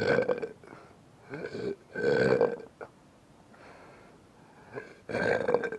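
A person belching deliberately, forcing the burps up from the throat: four separate belches with pauses between them. The longest and loudest comes about two seconds in, and another comes near the end.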